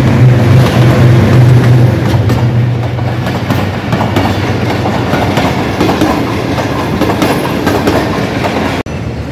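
Pakistan Railways diesel locomotive passing at close range, its engine hum loudest in the first couple of seconds, followed by the passenger coaches' wheels clattering over the rail joints. The sound cuts off suddenly near the end.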